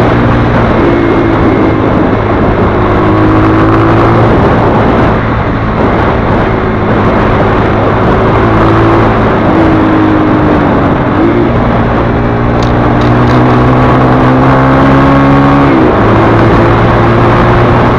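Zanella ZR200 motorcycle's single-cylinder engine running under way on a dirt road, with wind and road rush over it. The engine pitch dips and recovers briefly about eleven and again about sixteen seconds in.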